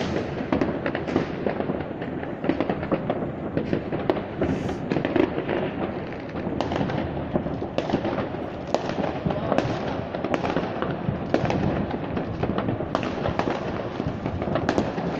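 Fireworks and firecrackers going off all over the city: a continuous dense crackle of many overlapping bangs, some sharper and nearer than others.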